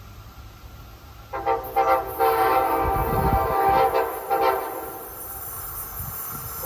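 Nathan K5LA five-chime air horn on an Amtrak electric train sounding a chord: about a second in it starts with a few short blasts, then holds a long blast before dropping in loudness near the end.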